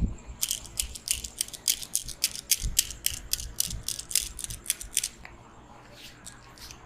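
Rapid, irregular run of crisp clicks and crackles, about four or five a second, from a barber's hands working a customer's head during a head massage. The clicks stop after about five seconds, with a few stray ones after, and there are a couple of soft low thumps.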